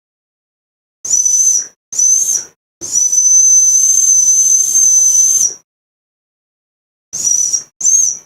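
Dog whistle blown in separate blasts, each a steady high-pitched tone with a breathy hiss: two short blasts, one long blast of about three seconds, then two more short blasts near the end.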